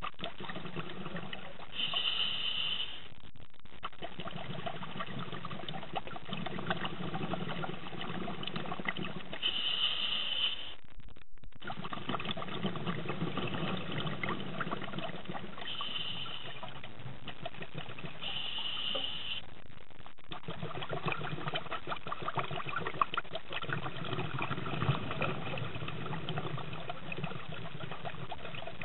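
A scuba diver breathing through a regulator underwater: a short hiss on each inhalation every several seconds, and between them long stretches of bubbling, crackling exhaust bubbles.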